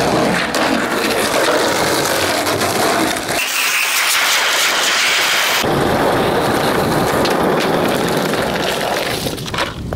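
Skateboard wheels rolling over rough asphalt, heard close up as a steady, coarse rumble. The sound changes abruptly twice: about three and a half seconds in it becomes a thinner hiss, and about five and a half seconds in the rumble returns.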